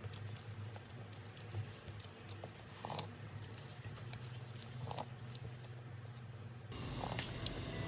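Quiet scattered clicks and taps over a low steady hum; soft background music comes in near the end.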